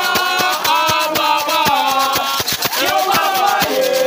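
Several voices singing a chant together over fast percussion, with sharp beats about seven or eight a second.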